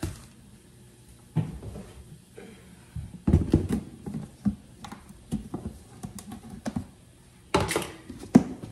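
Scattered knocks, clicks and clatter of a large plastic storage bin and its lid being opened and handled on a kitchen countertop, with the loudest knocks near the end.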